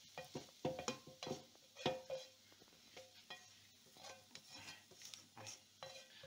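A utensil scraping and knocking against a nonstick frying pan as fried onion is scraped out into a clay pot: a string of light scrapes and taps, the sharpest in the first two seconds.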